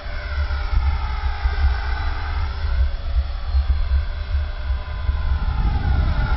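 Electric HK-450 RC helicopter in flight, its motor and rotor whine gliding up and down in pitch as it manoeuvres, over a steady low rumble.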